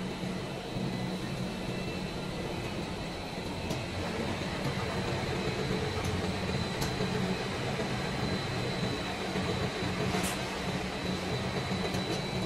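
Steady running of plastic-pipe factory machinery: a constant low hum with a thin, steady high whine over it and a few faint ticks.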